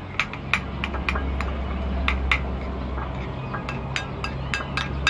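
A metal spoon clinking against a ceramic bowl in quick repeated taps, about two or three a second, as a sauce is stirred. Under it is a steady low motor hum, like an idling engine, that comes in just after the start.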